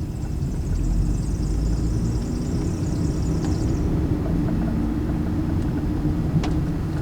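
Steady rumble of a 2001 Hyundai Elantra's 2.0-litre four-cylinder and road noise, heard from inside the cabin while driving. A high chirping sound runs through the first four seconds or so, and a single sharp click comes near the end.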